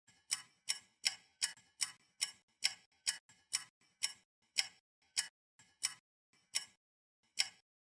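Clock ticking, sharp separate ticks that gradually slow down, the gaps between them stretching out toward the end.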